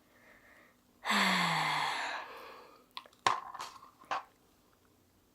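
A woman's long, exasperated sigh: a breathy exhale with a low voiced groan that falls in pitch. A few seconds later come three sharp little clicks.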